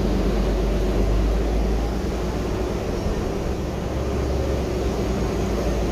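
Interior cabin noise of a Gillig trolley-replica 35-foot hybrid bus under way: a steady low rumble with road hiss.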